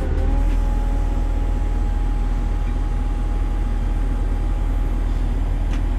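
Truck-mounted crane's diesel engine running steadily under load while lowering a suspended load, with a steady whine that sets in at the start and holds.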